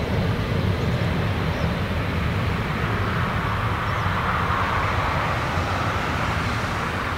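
Jet engines of a Boeing 777-300ER running as the airliner taxis: a steady low rumble under a broad hiss that swells slightly midway through.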